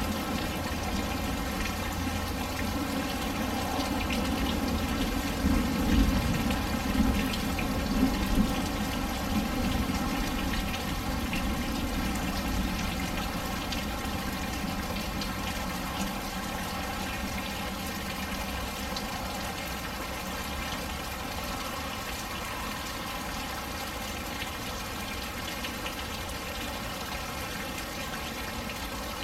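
Heavy rain from a thunderstorm falling, with rainwater pouring and splashing in a steady rush. A low rumble sits under it for the first ten seconds or so, then eases off.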